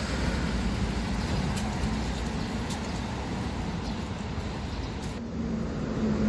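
Road traffic on a wide city street: a steady low rumble of passing vehicles. The sound changes abruptly about five seconds in.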